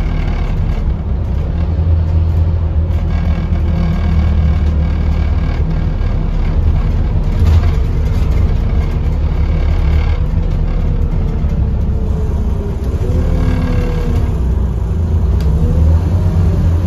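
Scania OmniCity N230UD double-decker bus running on the move, heard from inside the passenger saloon: a steady low engine hum with its five-cylinder diesel note. In the second half the engine pitch rises and falls a few times as the bus pulls away and changes speed.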